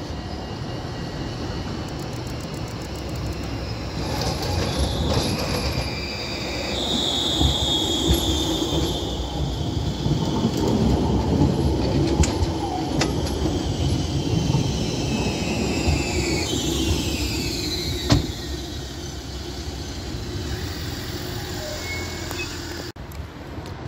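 A tram passes with a steady rumble of wheels on rail. For several seconds its wheels squeal in high, steady tones, and the squeal glides down and fades about three-quarters of the way through. A single sharp click comes shortly after.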